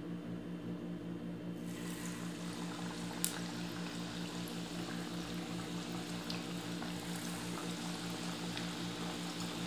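Murukku (rice-flour dough coils) sizzling in hot oil as they deep-fry. The sizzle starts about two seconds in, when the first coil goes into the oil. A sharp click comes about a second later, over a steady low hum.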